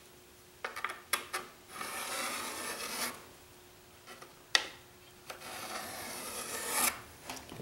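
Pencil scratching on a half-inch basswood board as it traces the inside outline of a canoe hull, in two long strokes of about a second and a half each. A few light clicks come about a second in, and a sharp tap about halfway through.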